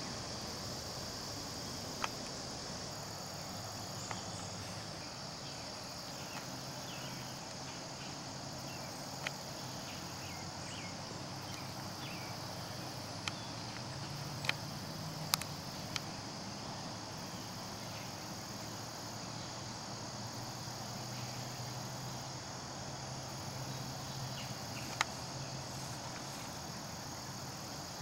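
Steady chorus of insects such as crickets, a continuous high trill, with a few sharp isolated clicks scattered through.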